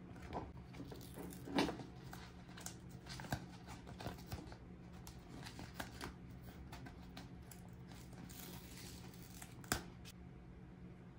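Hands unpacking miniature toy kitchen pieces: packaging crinkling and tearing, with many small clicks and taps and two sharper knocks, one about a second and a half in and one near the end.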